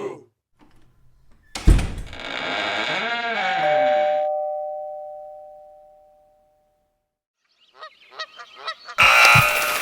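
A string of separate sound effects. A sharp knock leads into a noisy sweep whose pitch rises and falls, then two steady chime tones ring together and fade away slowly, like an electronic doorbell. Near the end there is a quick run of clicks, then a loud hiss like rain begins.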